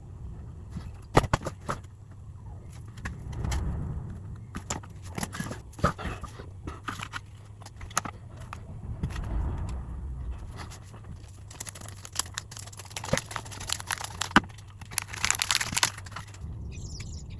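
Irregular clicks, taps and scrapes of small objects being handled, with a few rustling swells, over a steady low hum.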